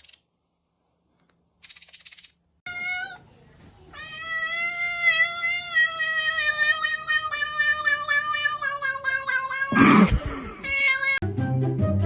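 A cat yowling: a short call, then one long drawn-out call that sinks slowly in pitch over about six seconds. It ends in a sudden loud burst of noise, and music with a beat comes in near the end.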